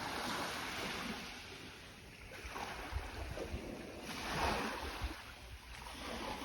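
Small waves washing up a sandy beach in surges that swell and fade, the strongest about four and a half seconds in, with a low rumble of wind on the microphone.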